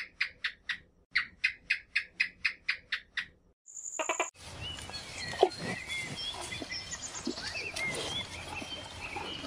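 A fast run of evenly spaced high animal chirps, about four a second, breaking off about three seconds in. Then an outdoor ambience with scattered bird chirps over a steady hiss.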